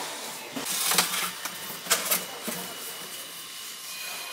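Flat-packed cardboard moving boxes being pulled off a stack and handled: scraping and flapping cardboard with a few sharp knocks, the loudest about one second and two seconds in.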